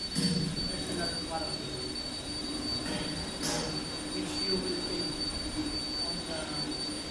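A steady high-pitched whine, with a few light clicks and faint voices under it.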